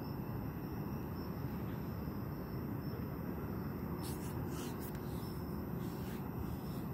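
Steady low rumble of parking-lot traffic, with a few faint brief noises about four and six seconds in.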